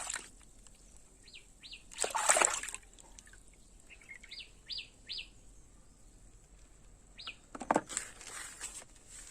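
Water sloshing and splashing in two short spells as a muddy plastic toy rooster is washed, with a handful of short, high chirps between them.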